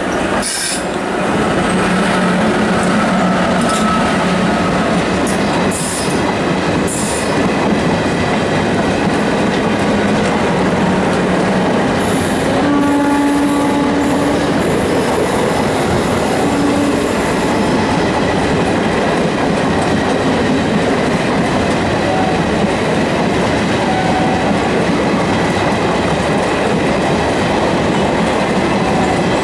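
Passenger coaches of an Indian express train, hauled by an electric locomotive, running past on the next track: a steady loud rush of wheels and rail clatter. A few sharp knocks come in the first seconds as the locomotive and leading coaches go by, and a short tone sounds about 13 seconds in.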